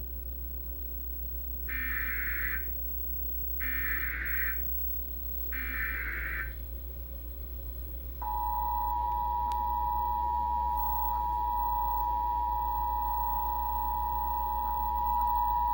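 Emergency Alert System broadcast: three short bursts of SAME digital header data, each just under a second and about two seconds apart. About eight seconds in, the steady two-tone EAS attention signal (853 and 960 Hz) starts and holds, announcing a tornado warning.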